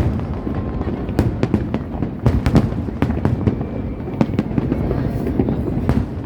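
Fireworks display going off: a rapid, irregular run of sharp bangs and crackles over a continuous low rumble of shells bursting.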